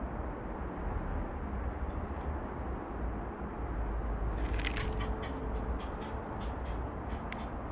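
Birds feeding at a peanut dish on a platform feeder: a quick flurry of light clicks and taps from beaks and feet about halfway through, then a few scattered taps, over a steady low rumble.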